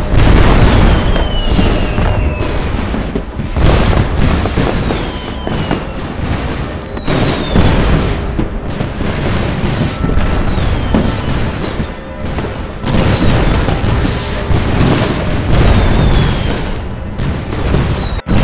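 Fireworks going off thick and fast: repeated booms and crackling bursts, with many short falling whistles layered over a constant low rumble.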